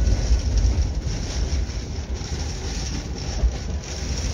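Strong wind gusting against a parked motorhome, heard from inside the cabin: a continuous low buffeting rumble that swells and eases, over a steady hiss.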